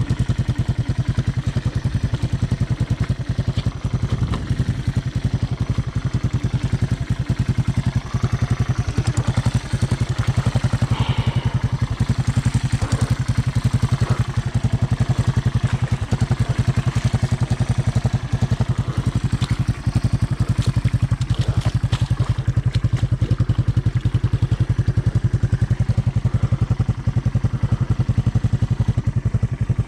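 Honda ATC 200M three-wheeler's single-cylinder four-stroke engine running steadily at low revs, its firing pulses even and unbroken.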